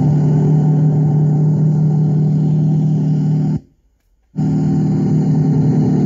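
Crawler bulldozer's diesel engine running with a steady low drone. It drops out abruptly for under a second a little past halfway, then comes back just as steady.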